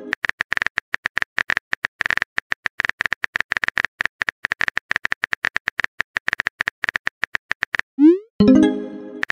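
Rapid, irregular clicking of simulated phone-keyboard typing, many clicks a second. About eight seconds in, a quick rising swoop and a short pitched pop: a message-sent alert.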